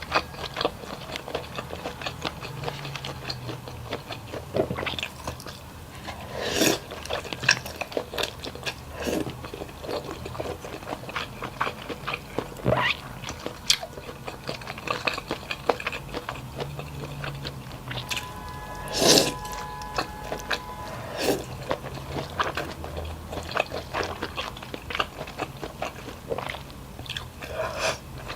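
Close-up chewing and biting: a person eating, with a steady run of wet mouth clicks and smacks and a few louder ones, the loudest about two-thirds of the way through.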